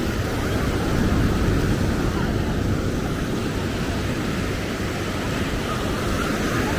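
Steady outdoor beachfront ambience: a continuous, even rumble of surf, wind and passing traffic, with no single sound standing out.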